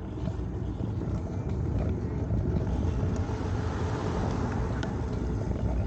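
Outdoor road noise: a steady, uneven rumble of traffic and wind on the microphone.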